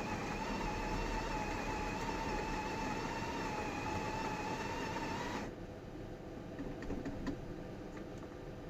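Breville BES870's built-in conical burr grinder running with a steady, slightly wavering whine, cutting off suddenly about five and a half seconds in, followed by a few light clicks.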